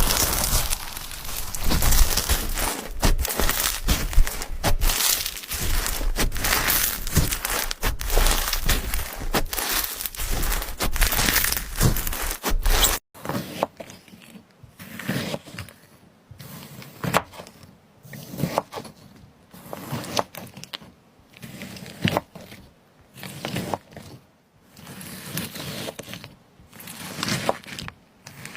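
Slime being squeezed and stretched by hand: dense, continuous crackling and popping. About halfway through it cuts abruptly to quieter, separate squishes and pops.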